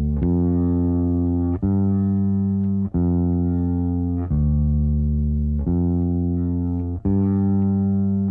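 Background music: a run of sustained low plucked-string notes, a new note about every second and a half.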